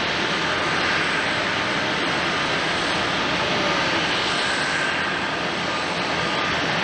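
Jet engines of an Airbus A321 airliner running steadily: a dense, even jet noise with a faint high whine through it.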